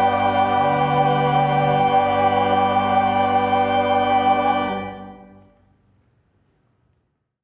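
Church choir and pipe organ holding the final chord of a hymn anthem, then releasing it about four and a half seconds in; the sound dies away in the room's reverberation within about a second, leaving silence.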